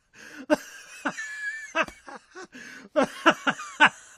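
A person laughing in short repeated bursts, with a few sliding high tones about a second in.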